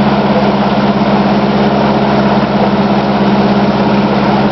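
An off-road 4x4's engine idling steadily, over the rushing of a fast mountain stream.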